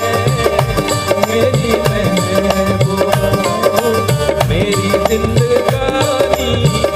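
Live Indian band music: tabla keeping a steady rhythm under a melody line.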